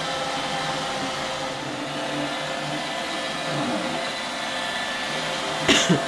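iRobot Roomba 880 robot vacuum running on a thick rug, giving a steady whirring hum with several steady tones from its vacuum motor and brushes. A couple of short knocks come near the end.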